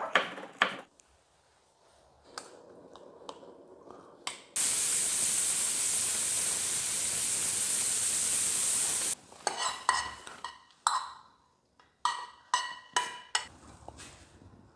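Kitchen cooking sounds: a few knife taps, then a steady high hiss of food sizzling for about four and a half seconds that starts and stops abruptly, then a run of light ringing clinks of dishes or shells.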